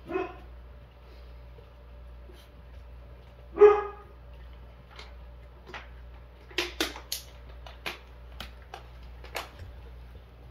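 A puppy gives two short barks, one at the start and a louder one about three and a half seconds later. Then comes a run of sharp clicks and clinks as the puppies eat from a metal food bowl.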